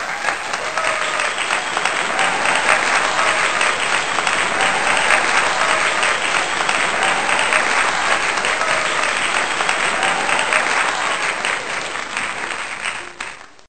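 Audience applauding: dense, steady clapping that starts suddenly, then dies away and stops near the end.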